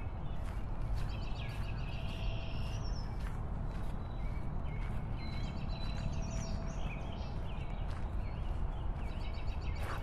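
Wind buffeting the microphone on a moving motorbike, a steady low rumble, with birds chirping and trilling over it and scattered small clicks.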